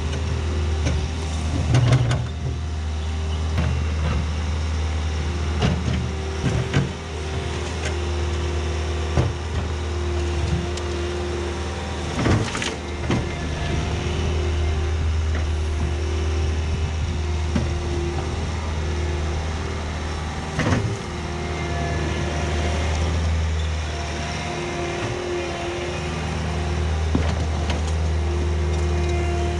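Diesel engine of a compact loader or tractor running steadily while working, with a pitched hum that swells and fades and a few sharp knocks and clunks, strongest about 12 and 21 seconds in.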